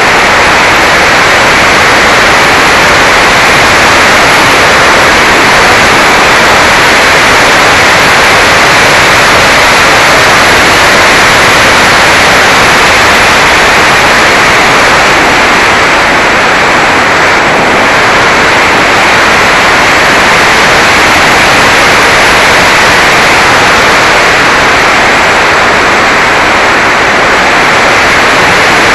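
Steady, loud rushing noise from a small action camera riding on a Mini Talon RC plane in flight: wind rushing over the camera's microphone, mixed with the noise of the electric motor and propeller.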